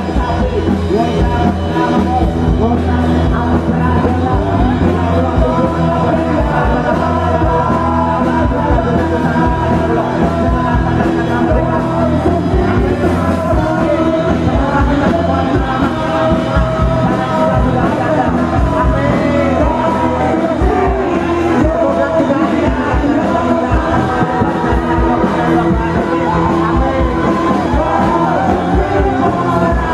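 Loud rock music played by a band, a singer singing and shouting over a steady drum beat.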